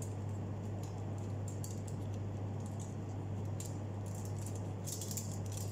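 Faint rustling and light clicks of gloved hands rolling a chicken-filled flatbread on a plate, a little busier near the end, over a steady low hum.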